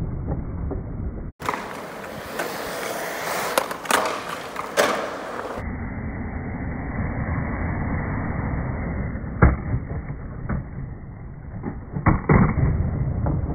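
Skateboard wheels rolling on the concrete of a skate bowl, a steady rumble broken by several sharp clacks of the board. The sound changes abruptly twice where clips are cut together, and some stretches sound muffled.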